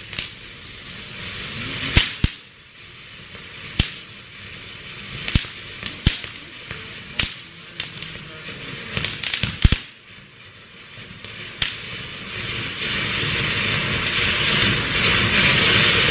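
Yuvraj Fireworks Pogo Red fountain cracker burning: a steady hiss of spraying sparks with sharp cracks every second or so over the first ten seconds. For the last few seconds the hiss grows louder and fuller.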